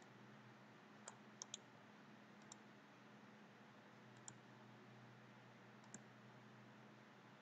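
Faint clicks of a computer mouse, about six in all, including a quick double-click about a second and a half in. A faint, steady low hum runs underneath.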